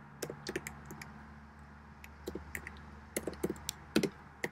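Typing on a computer keyboard: a word tapped out key by key in irregular clusters of light clicks, most of them in the last second and a half.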